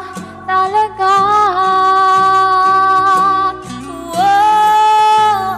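A woman singing a Tagalog ballad close into a condenser microphone over instrumental accompaniment. She holds one long note for about two and a half seconds, then rises into a second long held note near the end.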